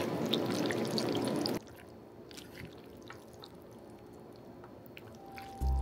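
A steady hiss with small drip-like ticks cuts off abruptly about a second and a half in. After it come faint, scattered clicks of chopsticks against the plate as noodles are tossed in sauce, and music begins near the end.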